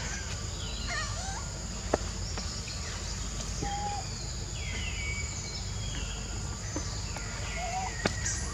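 Forest ambience: a steady high insect drone with scattered short bird chirps and whistles over a low steady rumble, and two sharp clicks, about two seconds in and near the end.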